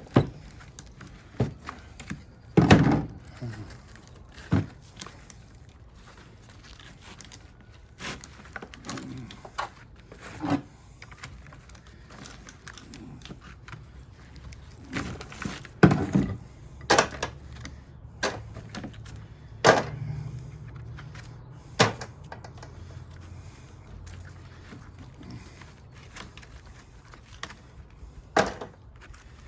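Irregular knocks, clunks and clinks of hand tools working copper windings loose from a welder's transformer, about a dozen sharp strikes spread unevenly with the loudest near the middle.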